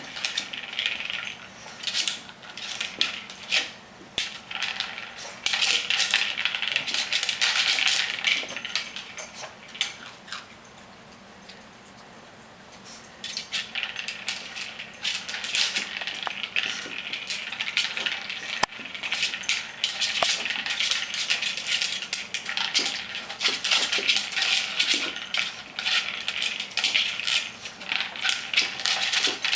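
Treat-dispenser toy with treats rattling and clattering inside as it is pushed and knocked about. The clatter stops for a few seconds about a third of the way in, then comes back.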